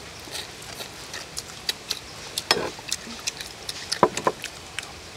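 Someone eating crispy deep-fried cá linh (mud carp): scattered short crunches and clicks, a cluster near the middle and another a little before the end.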